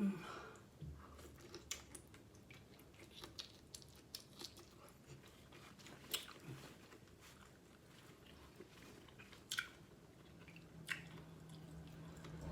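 Faint, close-miked chewing of lobster meat: scattered soft wet mouth clicks and smacks, with a few sharper ones.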